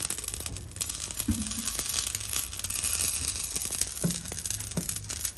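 Dense, continuous crackling of the hot fire in a clay crucible where gold is being melted with borax, over a steady low hum.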